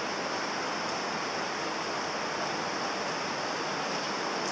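Steady, even hiss of background noise, unchanging throughout, with nothing else standing out.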